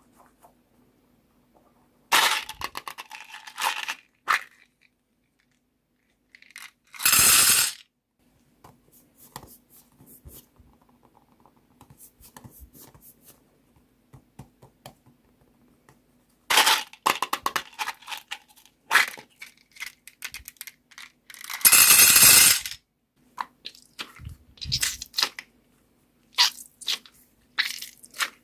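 Small beads clattering and crunching in repeated bursts of a second or two, with scattered light clicks between them over a faint low hum.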